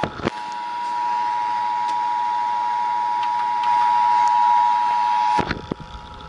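Emergency Alert System attention signal broadcast over FM radio: two steady tones sounding together as one harsh chord, cutting off suddenly a little over five seconds in.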